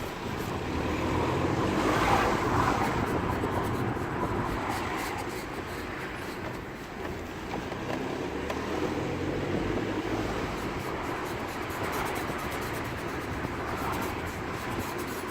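BMW E87 118d rolling along, with tyre and road noise and a squeaky, grinding noise from the near-side rear wheel that keeps time with the wheel's rotation. The owner does not know the cause; the noise mostly comes when the car is off throttle.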